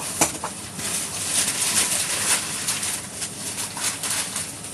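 Packaging rustling and crinkling with scattered clicks as a box is unpacked, including a sharp click about a quarter second in.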